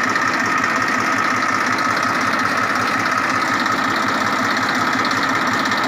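Massey Ferguson 1035 DI tractor's three-cylinder diesel engine idling steadily.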